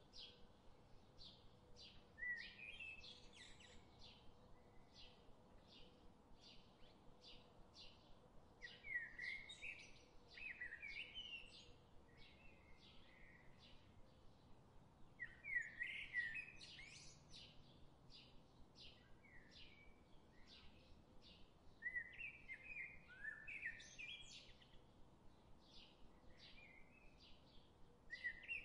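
Faint birdsong: a steady series of short high chirps about twice a second, with louder warbling song phrases recurring every several seconds.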